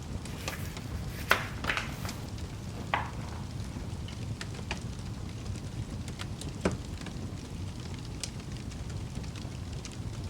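Fireplace fire crackling: a steady low rumble of burning with scattered sharp pops and snaps, the loudest about a second in and again near seven seconds.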